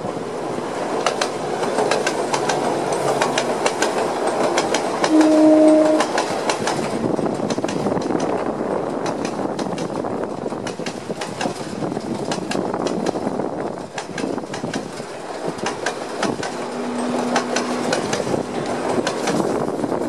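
Passenger train running past on the seaside line, its wheels clicking steadily over the rail joints. A short horn blast sounds about five seconds in, the loudest moment, and a lower, fainter tone sounds near the end.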